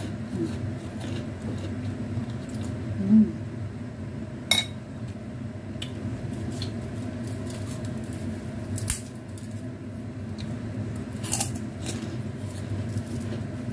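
Eating close to the microphone: chewing with a few crisp crunches of kerupuk crackers, and a spoon clinking against a ceramic plate a little after four seconds in. A steady low hum runs underneath.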